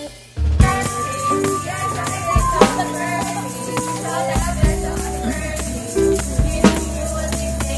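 Group of restaurant waiters singing a birthday song together, clapping and striking a tambourine, over music with a bass line. It starts abruptly about half a second in.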